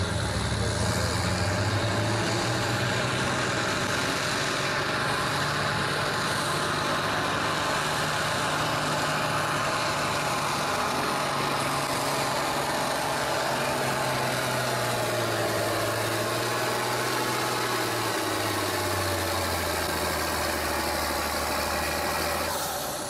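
International Harvester farm tractor engine running hard under load as it drags a weight-transfer pulling sled, a loud steady drone. About eighteen seconds in its pitch drops, and near the end it eases off.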